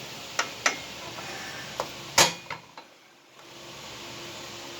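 Hand tools clinking and knocking against metal parts: four or five sharp metallic clicks, the loudest about two seconds in.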